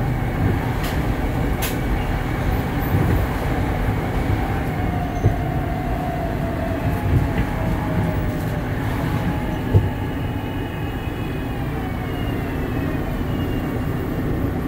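Adtranz-built Market-Frankford Line rapid-transit car running between stations, heard from inside at the car's end: a steady rumble of wheels on rail with a few sharp knocks, and faint whining tones that fall in pitch toward the end.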